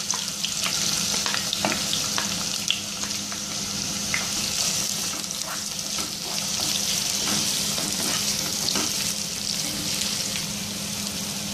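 Sliced onions sizzling steadily as they fry in hot coconut oil in a non-stick kadai, with scattered light knocks and scrapes of a plastic ladle stirring them.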